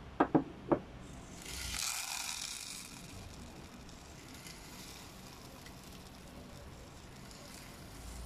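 Dry pet food pouring out of a homemade feeder's chute into a plastic cup: a hiss that swells about two seconds in, then settles to a faint, steady trickle. The feeder is dispensing on its own because its scale reads the bowl as empty. Three short clicks come just before the pour.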